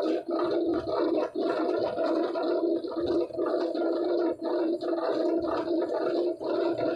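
Factory machinery running steadily in a cardboard-box workshop, a dense drone with a fast, uneven flutter, while large corrugated cardboard sheets are handled.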